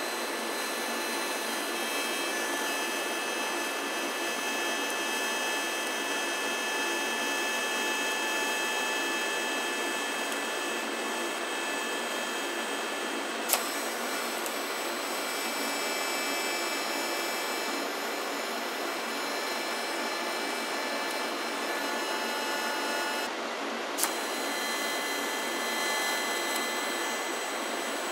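TIG welding arc hissing steadily as filler rod is fed into a sheet-metal seam. Two sharp clicks, about 13 seconds in and near 24 seconds in, the second after a brief break in the hiss.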